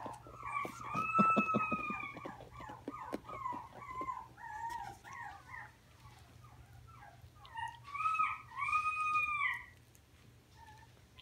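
Chihuahua puppies whining and yipping as they wrestle in play: a string of short high whines, with a longer arching howl-like whine about a second in and two more around eight seconds in. Quick scuffling clicks come in the first two seconds.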